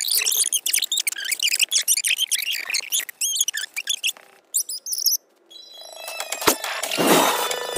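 Cartoon dialogue played back eight times fast, turned into rapid, high-pitched squeaky chatter. After a short gap, the sped-up soundtrack swells into a noisy build near the end.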